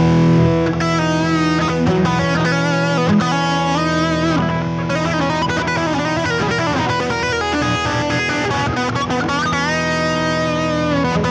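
Electric guitar playing a single-note lead with bends and vibrato over a steady held chord drone sustained by an Electro-Harmonix Freeze sound-retainer pedal.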